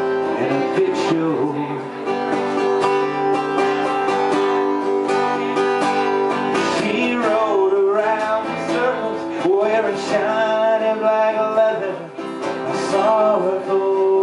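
Acoustic guitar strummed in a country-style song, with a man singing phrases over it into a microphone.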